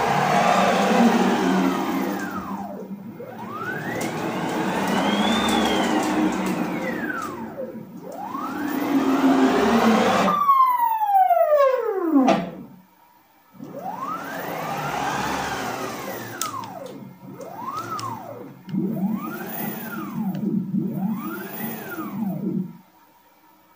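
Nema 23 stepper motors on a homemade CNC router, run by DM542 drivers at 36 V, whining through about eight rapid axis moves. On each move the whine rises in pitch as the axis speeds up and falls as it slows. About ten seconds in, one long falling sweep ends in a short pause, followed by quicker, shorter moves that stop just before the end.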